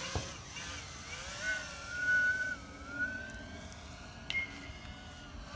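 Racing quadcopter's electric motors whining in flight, the pitch gliding up and down with the throttle. A short sharp click right at the start.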